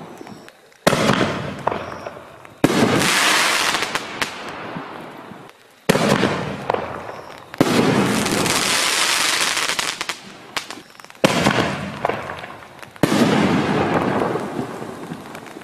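5-inch canister aerial firework shells going off: six sharp bangs in three pairs, each followed by a long fading hiss.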